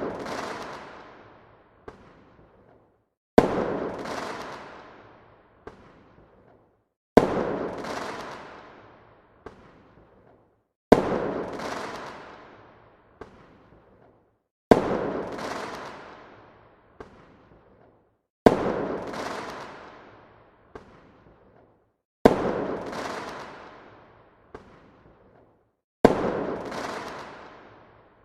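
Firework bursts, a sharp bang about every four seconds, seven in all and very evenly spaced. Each bang trails off over about two seconds and is followed by a faint single pop.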